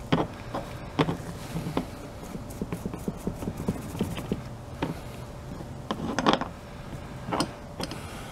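A scrub sponge being rubbed hard over a small die-cast metal toy car on a plastic tray, stripping paint softened by paint remover: irregular scrapes, knocks and rubbing, with louder scrapes about six and seven and a half seconds in.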